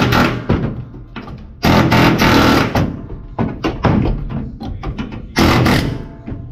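Pneumatic air chisel hammering its chisel bit into the sheet-steel floor-pan seam to split the spot welds. It runs in three bursts of up to about a second, with short stuttering taps between.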